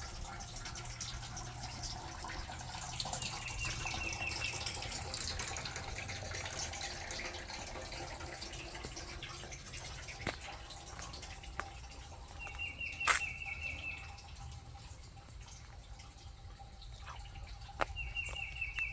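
A small bird's rapid high trill, a quick run of identical chirps about a second long, heard three times over quiet outdoor background noise. A single sharp click comes about two-thirds of the way through.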